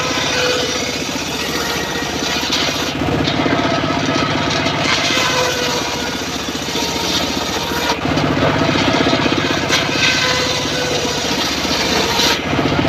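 Homemade engine-driven circular saw bench running steadily while ripping teak boards: the engine's fast, even pulsing under the rasp and whine of the blade in the wood, the tone shifting a few times as the boards are fed through.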